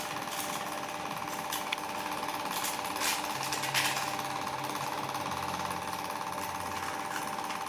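A power tool running steadily with a fast, even hammering rhythm. A lower hum joins about three seconds in, and there are a few sharp knocks.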